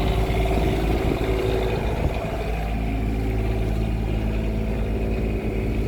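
Cummins Onan 7.5 kW Quiet Diesel generator running at a steady, even speed with a constant low engine drone, just after its power switch has been turned on.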